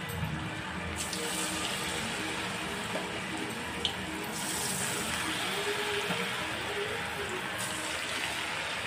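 Chicken pakoras deep-frying in hot oil: a steady sizzling, bubbling hiss that gets brighter about a second in and again about halfway through.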